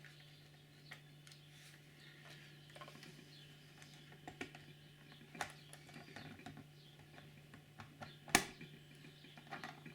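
Faint plastic clicks and taps as the body shell of a model railway railcar is eased back onto its chassis, with one sharper click about eight seconds in, over a faint steady hum.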